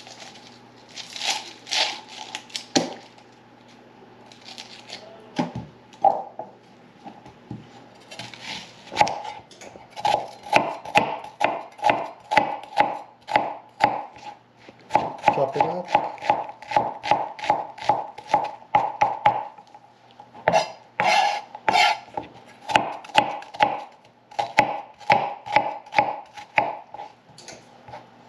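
Papery crinkling of onion skin being peeled off, then a chef's knife slicing and dicing an onion on a plastic cutting board. The knife strokes start a few seconds in and settle into a quick run of about three or four chops a second.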